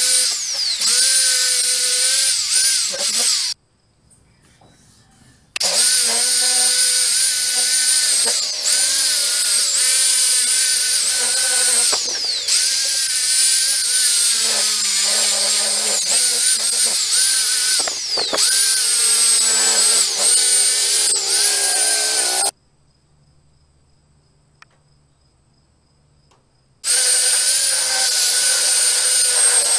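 Electric drill fitted with a polishing disc, running against an aluminium scooter crankcase cover. Its whine dips and rises as the disc is pressed on the metal. It stops abruptly twice: for about two seconds near the start and for about four seconds after the middle.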